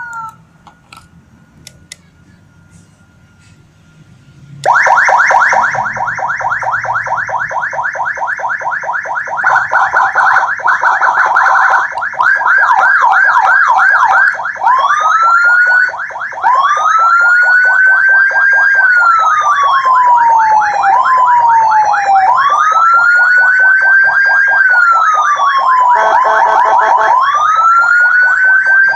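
A 2-in-1 electronic siren (CJB-LYA 80 W with a Whelen-type tone set) sounding loud through a 200 W horn speaker, cutting in about five seconds in after a faint steady tone and a few clicks. It runs a rapid warble, then a faster pulsing yelp, then slow wails that rise and fall every few seconds, with a short burst of fast warble near the end.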